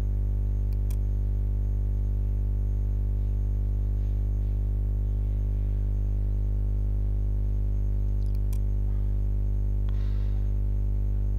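Steady electrical mains hum, a low buzz with many evenly spaced overtones, running unchanged under the recording. Two faint clicks, about a second in and again near the end.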